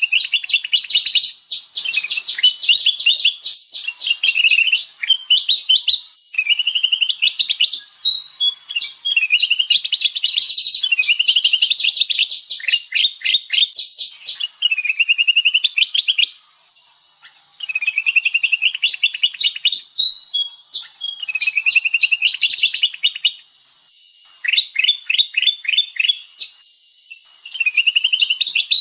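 Sooty-headed bulbul (kutilang) calls used as a bird-luring recording: rapid runs of sharp chirps and short rising notes, in busy chattering phrases of a few seconds with brief pauses between them, over a faint steady high tone.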